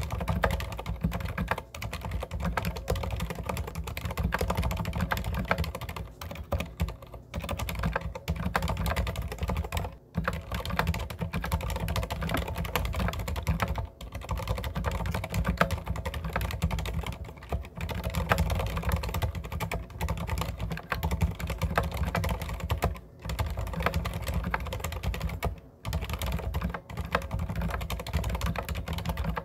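Deck Francium mechanical keyboard with silent red (low-noise linear) switches and PBT keycaps being typed on steadily, a dense run of keystrokes with a few short pauses. The switches are stock, not lubricated.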